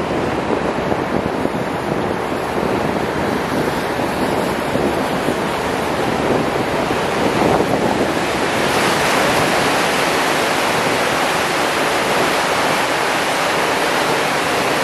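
Steady rushing of wind and water wash from a moving canal tour boat, with no clear engine note. About eight seconds in it turns brighter and louder as the boat passes under a low stone bridge arch.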